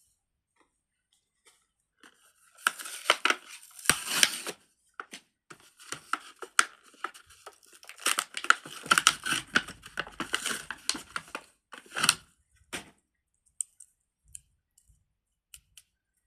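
Packaging crinkling and tearing as a fidget toy is unwrapped, in two irregular bursts of a couple of seconds each, with a few faint clicks near the end.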